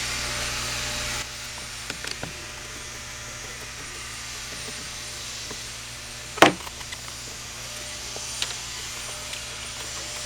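Handling noise from a Milwaukee M18 leaf blower being taken apart: light clicks and rubbing of its plastic parts, with one sharp knock about six seconds in, over a steady low hum.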